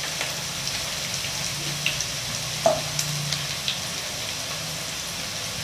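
Sliced Thai shallots deep-frying in oil in a wok, a steady sizzle with scattered crackles as a wooden spatula stirs them. One sharper knock a little before halfway.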